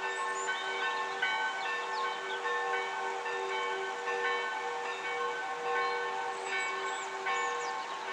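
Village church bells pealing: several bells struck over and over, their notes overlapping above a steady, pulsing hum.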